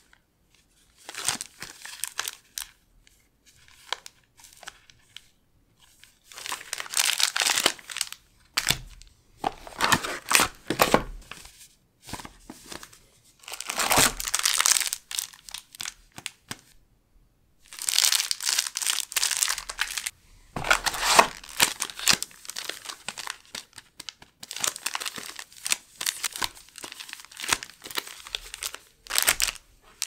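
Foil Pokémon booster packs and a clear plastic card wrapper crinkling as they are handled, in irregular bursts of crackle with short pauses between.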